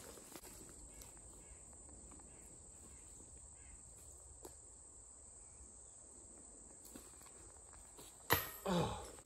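Insects, crickets or similar, buzzing steadily and high-pitched in the background. A single sharp knock near the end, with a brief ringing tail, is the loudest sound.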